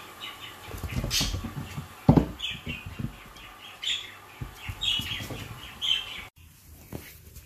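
Birds chirping repeatedly in the background, with soft thumps and scuffles from a puppy and a cat playing on a laminate floor. The loudest thump comes about two seconds in.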